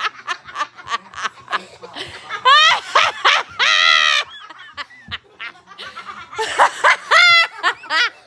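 A person laughing hard: rapid snickering bursts broken by high-pitched squeals and one held shriek of laughter a few seconds in.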